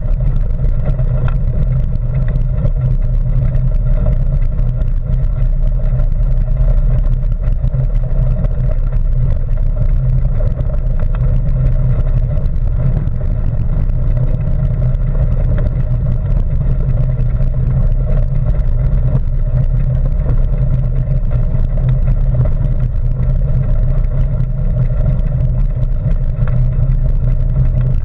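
Bicycle rolling steadily along a gravel path: a continuous low rumble of tyres on loose gravel and wind on the bike-mounted microphone.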